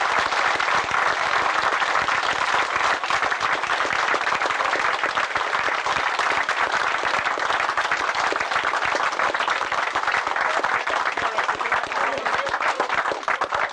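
A crowd applauding, a long steady round of clapping.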